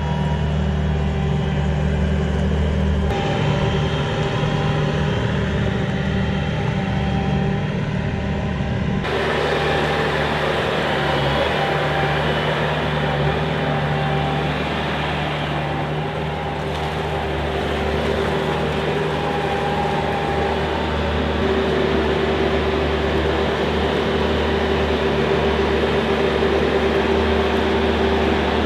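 Engine-driven machinery running steadily, a constant drone with a whine over it. Its tone shifts abruptly about 3 and about 9 seconds in, and a mid-pitched whine grows stronger in the second half.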